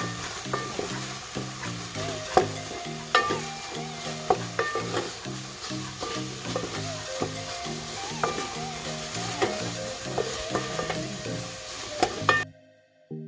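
Tomato sauce and oil sizzling in a pan while being stirred, with a spoon clicking against the pan now and then. The sizzling cuts off suddenly near the end. Background music runs throughout.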